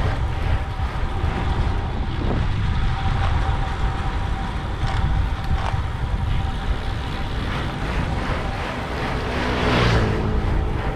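Wind buffeting the microphone while riding a road bike, with a thin steady whir throughout. About ten seconds in, a louder swell with a low hum rises and fades.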